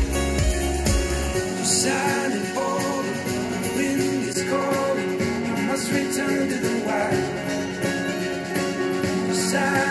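A rock song played back through studio monitor speakers and picked up by room microphones: first a pair of Adam Audio T5V, then, partway through, a pair of Tannoy Gold 5. The deep bass drops out about a second and a half in.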